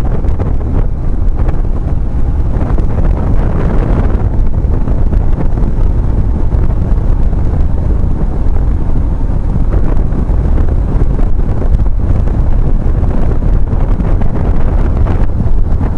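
Steady wind buffeting on the microphone of a BMW R1150GS motorcycle riding at road speed, a loud low rumble with the bike's running noise underneath.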